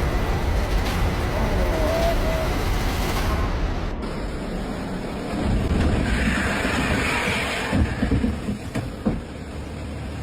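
Loud steady roar and rumble of rushing floodwater. The sound changes abruptly about four seconds in, and a few knocks come near the end.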